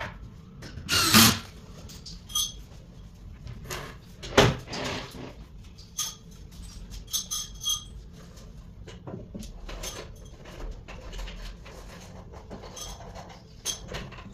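Knocks and thumps of particleboard cabinet panels and rails being handled and set down. There are two loud knocks, about a second in and about four seconds in, followed by a run of lighter clicks and taps.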